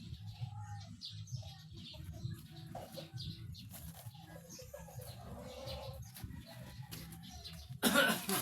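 Birds calling and chirping, among them doves cooing, over a steady low hum, with a sudden louder noise near the end.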